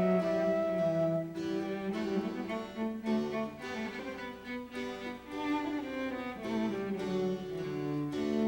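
Background music: bowed strings, cello and violin, playing slow held notes in a calm instrumental.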